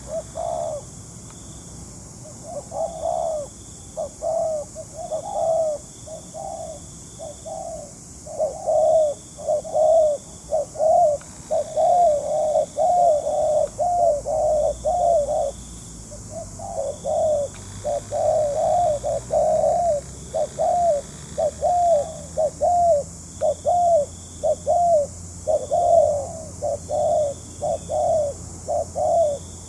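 Spotted doves cooing: a long run of short, arching coos, about two a second, pausing briefly near the middle before going on.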